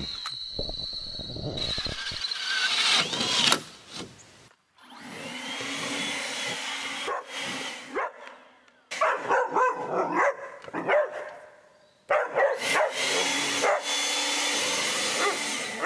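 A dog barking and whining in several short bursts, over a steady machine hum that stops and starts.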